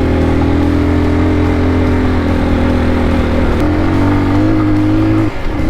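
Single-cylinder engine of a CSC TT250 dual-sport motorcycle running steadily while riding. Its pitch steps up slightly partway through and briefly drops and recovers near the end, as the throttle is eased off and reopened.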